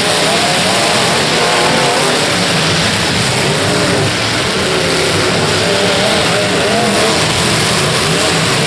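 Several demolition derby cars' engines revving up and down at once, a loud continuous din with pitches rising and falling over one another.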